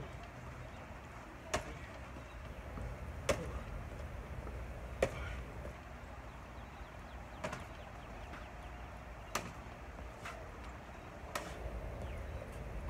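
Kicks landing on a freestanding rubber torso striking dummy: six sharp smacks, one about every two seconds, over a steady low rumble.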